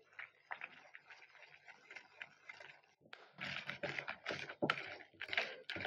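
Utensil mixing flour and liquid into a cake batter in a bowl: faint clicks and scrapes against the bowl, becoming busier about halfway through at roughly three strokes a second.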